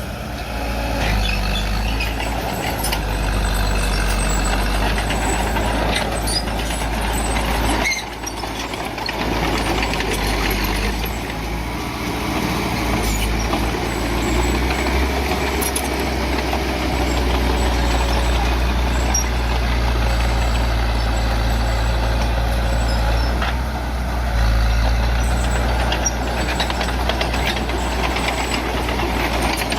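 Bulldozer's diesel engine running steadily with a deep drone, with scattered clanks over it. The sound drops briefly about eight seconds in.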